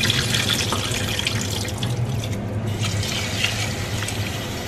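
Water from a kitchen faucet running into a pot as rice is rinsed, with the grains being swirled by hand in the water.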